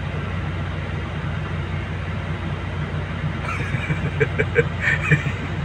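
Heavy diesel engine of a Volvo crawler excavator running with a steady low rumble as the machine creeps onto a lowbed trailer. About three and a half seconds in, a run of short, sharp higher-pitched sounds joins it.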